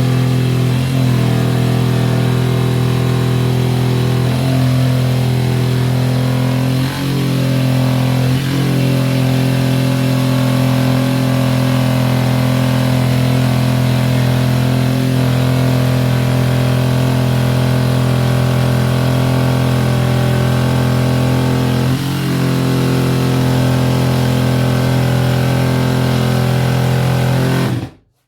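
Erbauer EJS 18Li 18 V cordless jigsaw cutting through a 40 mm worktop, running steadily and dipping briefly in pitch a handful of times, then stopping abruptly near the end.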